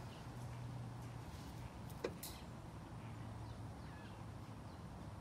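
Quiet outdoor ambience with a steady low hum, a single sharp click about two seconds in, and a few faint bird chirps.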